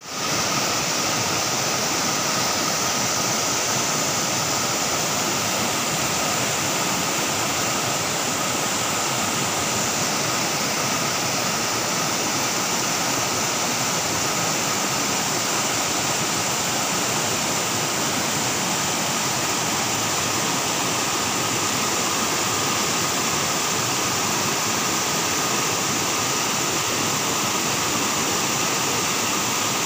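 Fast, muddy river rushing over rocks in rapids: a steady, unbroken rush of white water.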